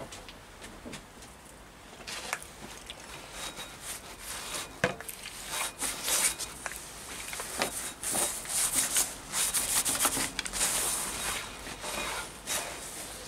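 Cloth scrubbing over the face of a Reliant 850 engine's steel flywheel: a run of hissy rubbing strokes that starts about two seconds in and is heaviest in the second half, with scattered clicks and one sharper knock near the middle.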